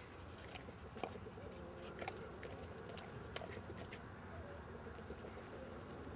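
English Mastiff chewing and biting into a raw pork butt: irregular sharp clicks and crunches, the loudest about three and a half seconds in, over a steady low background noise.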